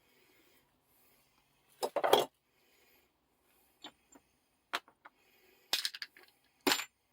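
Metal vise parts clinking and knocking as they are handled, in irregular separate strikes, the loudest a short cluster about two seconds in.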